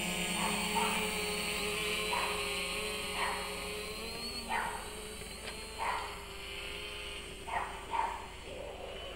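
A dog barking about eight times at irregular intervals over the steady propeller hum of a Fimi X8 SE quadcopter, which fades as the drone climbs away.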